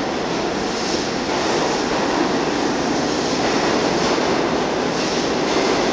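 New York City subway train running along the far track, a steady, loud rumble of its wheels on the rails.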